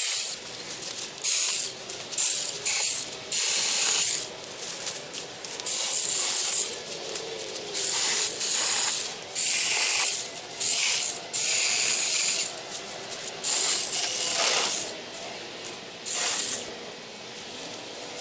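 Six-inch cordless mini chainsaw cutting through a tree limb. The chain makes about a dozen hissing, rasping bursts of a second or so each, over the faint whine of the small electric motor.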